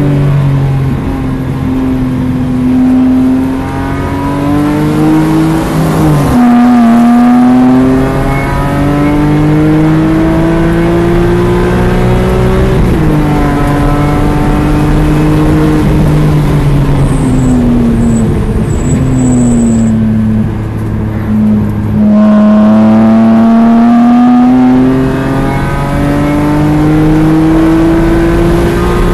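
BMW E46 M3's inline-six engine heard from inside the cabin under hard track driving. The revs climb steadily in each gear and drop sharply at the upshifts, about four times. Near the middle they fall away as the car slows for a corner, then climb again under full throttle.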